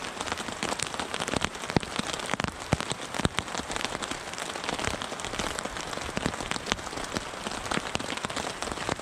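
Rain falling on the AquaQuest tarp overhead: a steady hiss with many irregular sharp drop hits.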